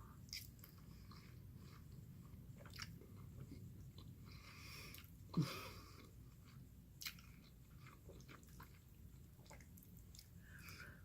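Close-up mouth sounds of a person eating: chewing and biting with scattered small wet clicks and smacks. One sharper, louder mouth sound comes about halfway through.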